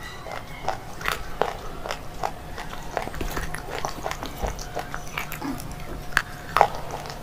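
Crunching and chewing of a slate bar: irregular crisp crunches, a few each second, as the brittle slate breaks between the teeth.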